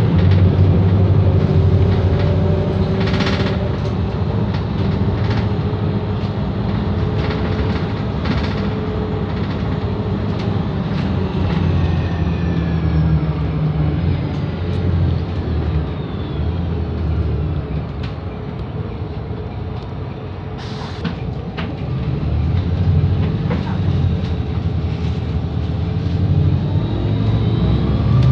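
Volvo B7RLE bus's six-cylinder diesel engine and road noise heard from inside the passenger cabin as the bus drives along, with a few knocks and rattles from the body. The engine eases off for a few seconds about two-thirds of the way through, then builds again as the bus picks up speed.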